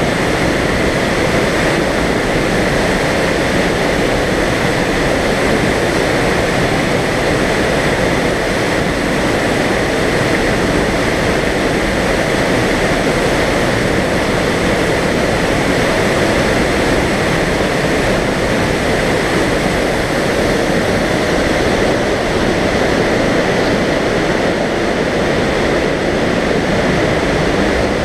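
A waterfall plunging through a narrow rock chasm into a pool: a steady, loud rush of falling water.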